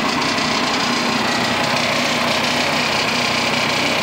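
Cable reel machine's engine running steadily at an even speed, with a dense, hissing mechanical noise.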